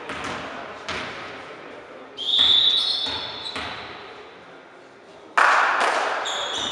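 A volleyball bounced twice on a hardwood sports-hall floor, then a referee's whistle blown once, about two seconds in, to signal the serve. Near the end comes a sudden loud smack that echoes around the hall.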